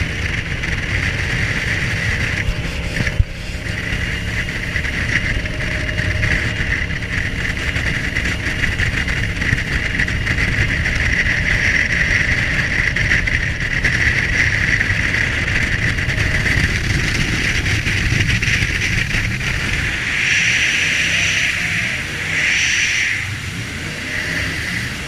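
Jet boat running at speed, its engine and water jet making a steady high whine over a rumbling rush of noise. Near the end come three short, louder bursts.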